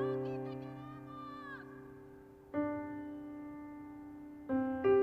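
Soft piano chords, each struck and left to ring and slowly fade: one about two and a half seconds in, and two more in quick succession near the end.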